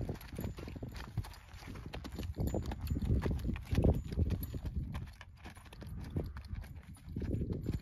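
Hoofbeats of an Arabian mare trotting and turning on a sandy dirt arena: a run of dull, uneven thuds.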